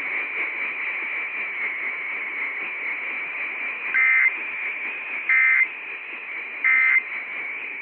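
Radio receiver hiss, then three short bursts of EAS end-of-message data tones about 1.3 seconds apart, marking the end of the emergency alert test broadcast.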